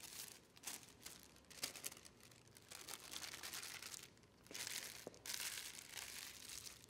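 A sheet of paper being crumpled and crinkled between the hands into a ball, in irregular rustles that are loudest about four and a half to six seconds in.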